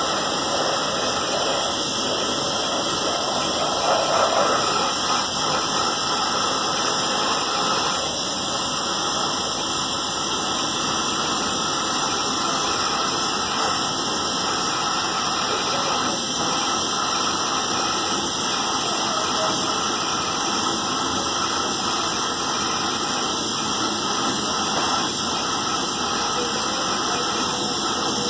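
Gas welding torch flame hissing steadily as it heats the seam of a brass pot.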